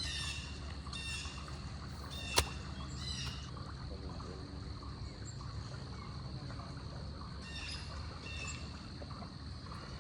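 Birds calling in short bursts a few times over steady outdoor background noise and a faint high steady insect-like drone, with a single sharp click about two and a half seconds in.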